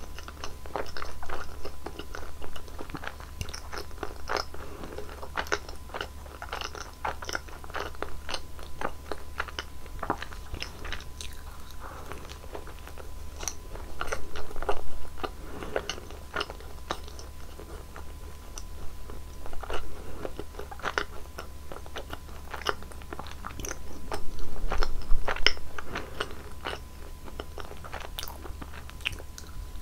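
Close-miked biting and chewing of Nutella-filled rolls: crisp crunching bites and wet chewing, with louder bursts of chewing about halfway through and again near the end.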